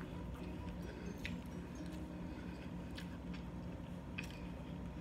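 A person chewing food close to the microphone, with a few short wet clicks and smacks about one to two seconds apart.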